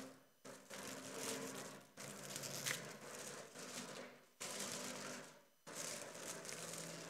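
Faint crinkling and rustling of a papillote wrapper being folded by hand, in several stretches with short pauses.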